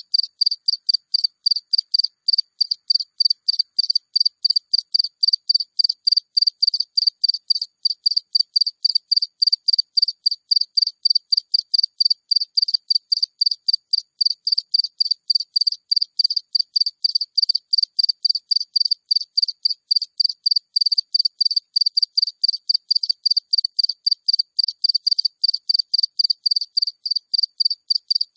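A single cricket chirping close up: a steady, even run of short high-pitched chirps, about three a second.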